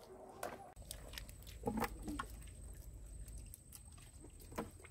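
Faint, scattered wet clicks and squelches of hands and bare feet working in soft mud while small fish are picked up, with a thin steady high tone behind them.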